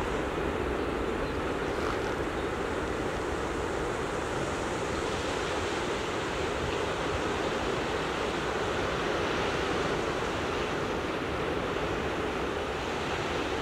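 Ocean surf washing steadily, an even rushing noise with no breaks or distinct events.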